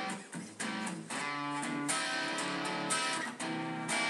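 Background music led by strummed guitar, with notes changing in a steady rhythm.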